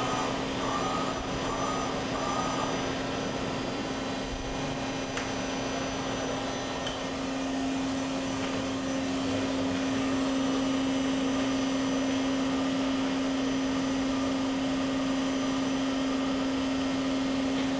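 Daewoo Puma 200LMSA CNC turning center running under power while its main spindle is put through a C-axis check. It gives a steady machine hum that grows stronger about seven seconds in, with a second, higher steady tone joining it soon after.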